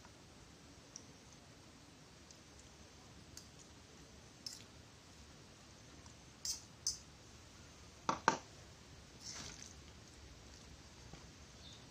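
Metal fork clicking and scraping against a plate while noodles are tossed: scattered light clicks, with two louder knocks close together about eight seconds in and a short scrape just after.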